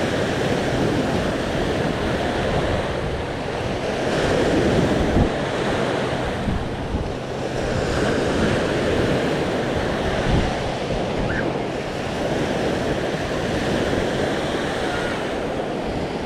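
Small sea waves washing onto the shore in a steady, swelling hiss, with wind buffeting the microphone.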